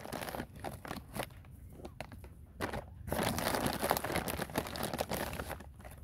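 Crinkling and rustling as millet is handled and scattered by hand, in short bursts at first, then a longer stretch from about three seconds in until near the end.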